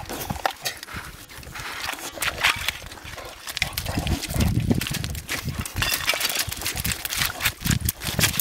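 Thin puddle ice cracking and crunching as two boxer dogs paw and step on it, in many sharp irregular cracks, with loose shards and gravel crunching underfoot and the dogs sniffing at the ice.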